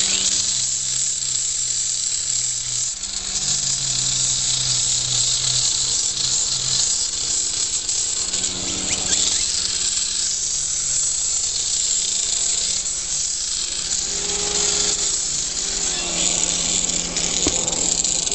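Electric grinder sanding down a horse's hoof. It makes a steady, high grinding hiss that starts abruptly, with a low motor hum under it.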